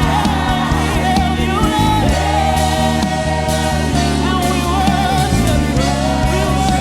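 Live gospel worship music: a lead vocalist singing a sustained, wavering melody over keyboard and bass accompaniment.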